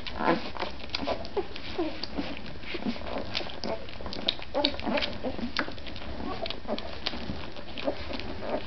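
Newborn Irish Wolfhound puppies nursing: many quick suckling clicks mixed with short, high little squeaks and grunts.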